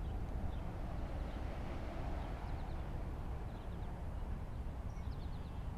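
Outdoor background: a steady low rumble of noise with a few faint, short, high bird chirps now and then.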